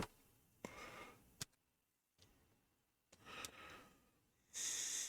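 Faint breathing with a few small clicks, then a short, louder breath or blow of air near the end.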